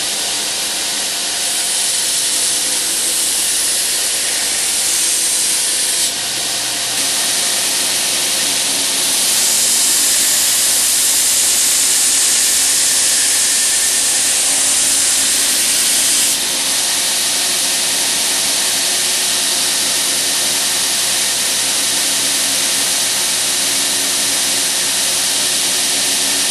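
Belt grinder with a coarse 40-grit belt on a flat platen, grinding a hardened steel knife blade: a steady loud hiss over the low hum of the motor, louder in two long stretches.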